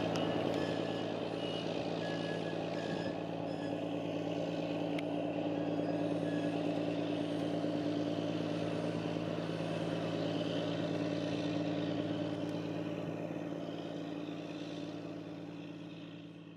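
Small tugboat's diesel engine running at a steady low drone as it passes at speed, fading near the end as it moves away.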